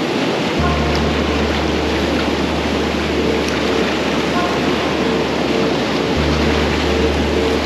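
Whitewater rapids of a wide river rushing over rocks in a loud, steady, unbroken wash of noise.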